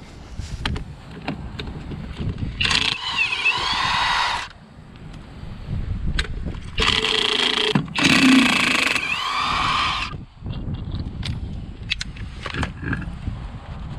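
A power tool run in three bursts of one to two seconds each, its whine dipping and rising once in the first and last bursts, with scattered sharp clanks of tools and parts in between.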